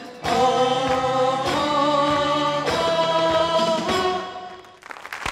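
Final chords of a live Turkish slow-pop song: the band and backing singers hold three long, steady chords in turn, then the sound dies away about four to five seconds in. Applause begins right at the end.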